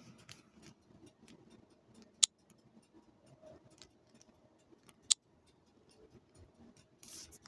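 Faint room tone with scattered small ticks and two sharp clicks about three seconds apart.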